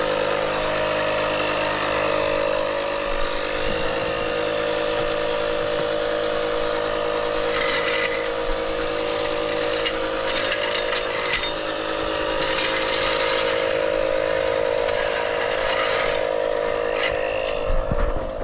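Portable air compressor running steadily, inflating a tire toward 60 psi; its motor drone holds one pitch and shifts slightly about four seconds in, with a few faint clicks over it.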